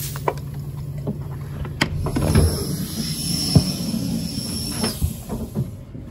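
Power-operated passenger door of a Chiltern Railways Mark 3 coach opening after its Open button is pressed: clicks and knocks of the door mechanism, with a high steady tone that stops about five seconds in, over the low hum of the standing train.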